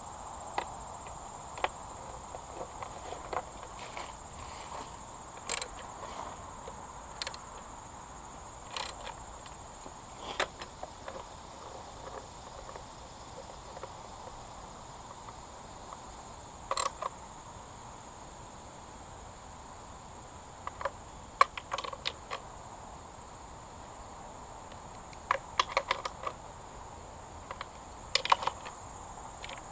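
Irregular metallic clicks and taps of hand tools and parts while the new pull start assembly is bolted onto the outboard, with clusters of quick clicks about 17, 21–22, 25–26 and 28 seconds in. A steady high-pitched drone runs underneath.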